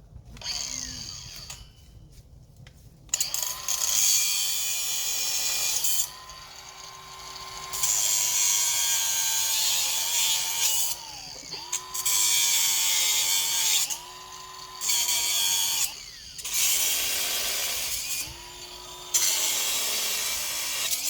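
Power drill run in about six bursts of one to three seconds, its motor note sagging under load and dropping away as the trigger is let go each time.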